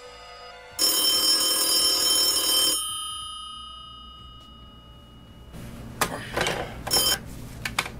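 Red push-button desk telephone ringing once for about two seconds, the ring dying away afterwards. Then, about six seconds in, rustling and sharp clicks as the handset is picked up off the cradle.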